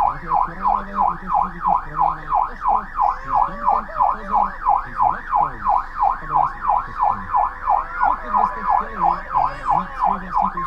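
Police car siren in a fast yelp, sweeping up and down about three times a second, with people talking under it.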